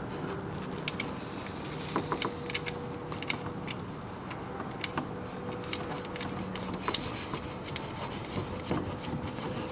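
Scattered light clicks and taps of hands working on the underside of the car as the automatic transmission's fill plug is screwed back in by hand.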